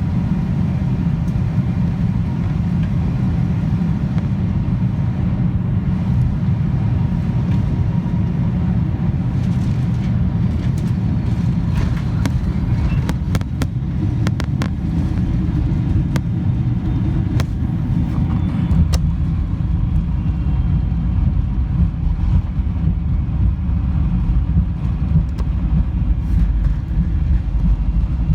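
Cabin noise aboard a Boeing 747-400: the steady low rumble of the engines and airflow, growing deeper and heavier about two-thirds of the way through, with a few faint clicks in the middle.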